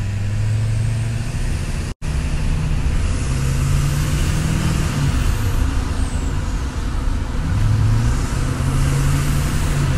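Duramax 6.6-litre turbodiesel V8 with a 4-inch exhaust, heard from inside the pickup's cab while driving: a deep, steady exhaust drone whose pitch rises and falls with the throttle, dropping about seven and a half seconds in, as at a gear change, then climbing again. The sound cuts out for an instant about two seconds in.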